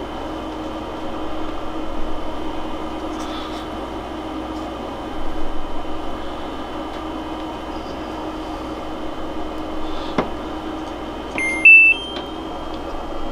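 Incubator's electronic alarm giving a short high-pitched beep that steps up in pitch near the end, its signal to shut the open door. A steady hum runs underneath.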